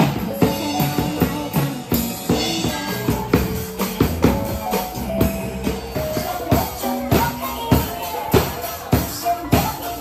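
Background music with a drum kit keeping a steady beat under held instrumental notes.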